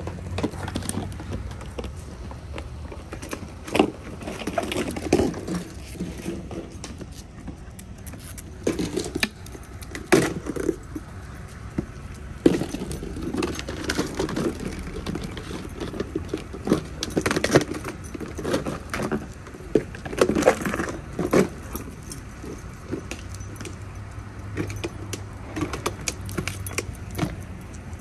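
Two puppies playing and tussling with a plastic drink bottle: a busy, irregular run of knocks, crinkly rattles and scuffles.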